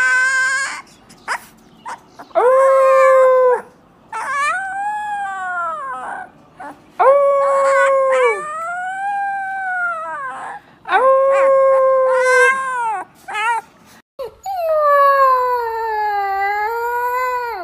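Young husky puppies howling: a string of drawn-out, high howls, each rising, holding and falling in pitch, with short breaths between them. From about fourteen seconds in, a second pup gives one long howl that sags in pitch and rises again.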